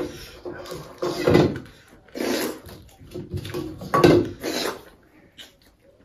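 Wet eating noises of pakhala (watered rice) being eaten by hand: slurping and mouth-smacking in irregular bursts, three louder ones, dying down near the end.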